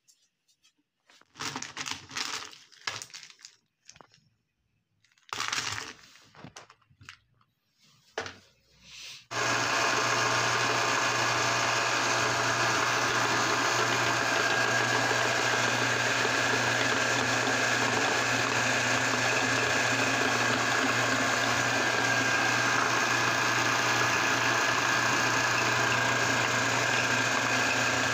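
Irregular crackling and clattering as pieces are handled and dropped into the grinder. Then about nine seconds in, a motor-driven meat grinder starts suddenly and runs at a steady pitch with a constant hum as it grinds the pieces.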